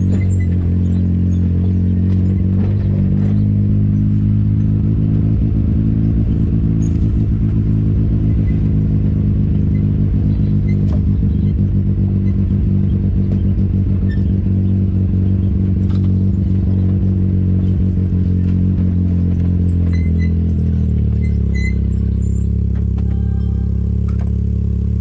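Side-by-side UTV engine running steadily at low trail speed, with frequent knocks and rattles from the vehicle jolting over a rough dirt track. Near the end the engine note drops as the vehicle slows to a stop.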